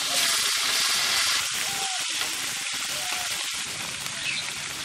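Climbing perch coated in turmeric and chili marinade sizzling loudly as they fry in hot oil in an iron pan. The sizzle is dense and steady, easing a little over the seconds.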